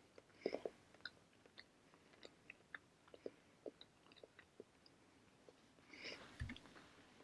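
Quiet close-up chewing of bread: soft, scattered mouth clicks and smacks. A brief rustle and one low thump come about six seconds in.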